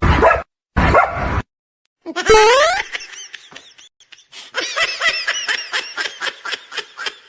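A dog yapping in a quick run of short, high-pitched barks, about five a second, after a single rising cry.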